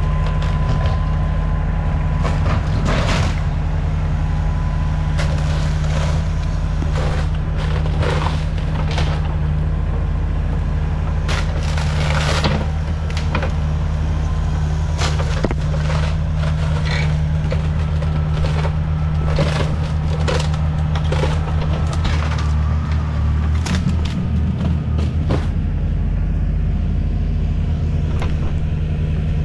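Diesel engine of a Kubota compact excavator or loader-backhoe running steadily under load, with repeated cracks and crunches of a wooden building being broken apart and crushed.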